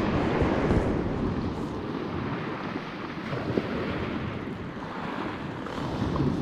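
Baltic Sea surf washing steadily on the beach, with wind buffeting the microphone.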